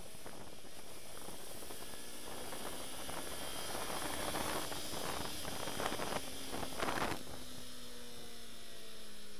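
Yamaha R25 parallel-twin engine running under way, half buried in a steady rush of wind noise, with heavier gusts in the middle. About seven seconds in the engine note falls steadily as the bike slows.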